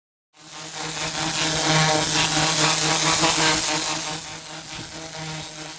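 Power washer of over 3000 PSI blasting concrete roof tiles clean: a loud, steady hiss of the water jet over the low drone of the washer's pump motor. It eases a little about four seconds in.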